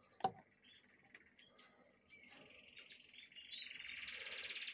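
Caged canaries chirping, with one sharp knock just after the start; from about two seconds in a canary sings a long, fast trill that grows louder.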